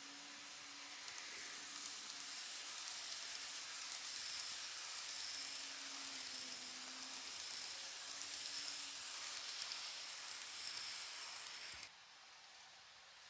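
N-scale KATO 381-series model train running past on its track: a steady, hissy rolling rattle of the wheels with faint clicks over the rail joints, a high whine and a low hum, building as it nears and dropping away suddenly near the end.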